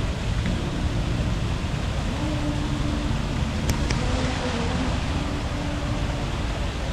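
Steady outdoor city noise: a continuous low rumble with a faint hum of tones in the background.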